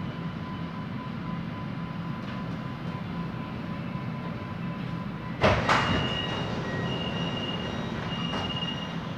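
Inside a Siemens Inspiro MRT train: a steady low rumble with a thin motor whine that stops about five seconds in. A sharp loud thump comes next, a second one right after, then short high-pitched tones that come and go.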